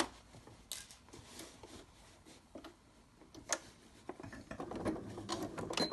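Handling noises at a sewing machine: scattered light clicks and the soft rustle of fabric and ribbon being moved into place, busier near the end.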